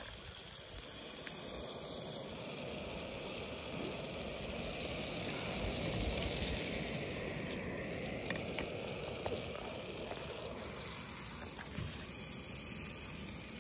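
Butter sizzling in a frying pan over a canister gas stove: a steady hiss that swells near the middle and eases off again.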